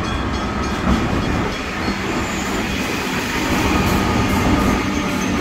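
A Melbourne Metro Comeng suburban electric train running along the station platform: a steady rumble of wheels on rail, with a faint high squeal creeping in during the last couple of seconds.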